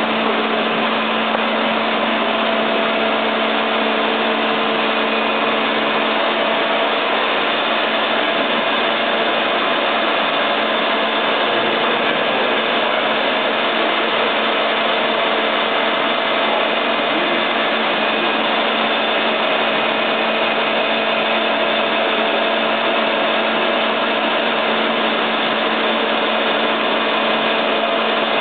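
Doosan Puma 700 CNC lathe running, its spindle turning a large workpiece in the chuck: a steady machine whir with a constant low hum and no change in speed.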